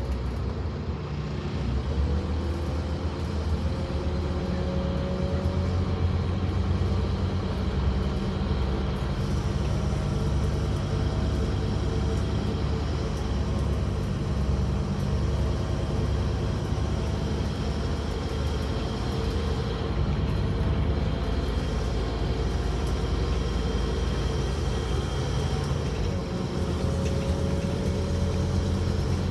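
Scania N230UD Omnicity double-decker bus running, heard from the upper deck: its five-cylinder diesel and the road noise make a steady low drone, with a whine that rises in pitch several times.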